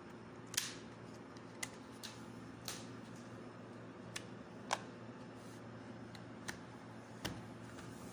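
Irregular light clicks and taps, about eight in all, from a laptop and its plugged-in cables being handled and unplugged, over a faint steady hum.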